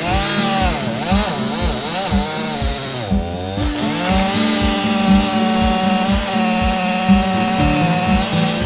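Stihl MS261 C two-stroke chainsaw cutting red maple: its pitch dips and climbs as it loads in the wood for the first few seconds, then runs steady. Background music with a steady beat plays under it.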